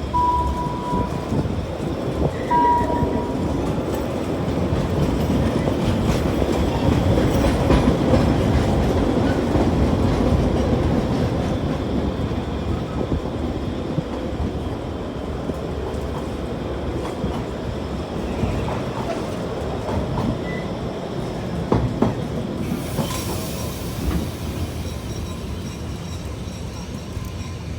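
Steam train running on the rails, a dense rumbling clatter that builds to its loudest about a third of the way in and then slowly fades, with two short high squeals near the start.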